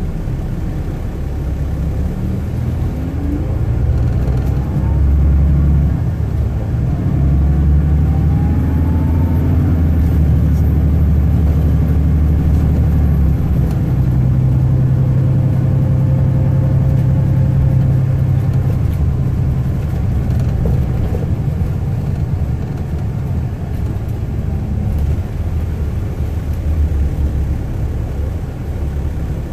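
A 2007 MCI D4500CL motor coach's diesel engine and drivetrain, heard from inside the cabin while the coach is under way. It makes a steady low drone with road rumble, and its pitch rises a few seconds in as the coach accelerates, then it holds steady and eases off after the middle.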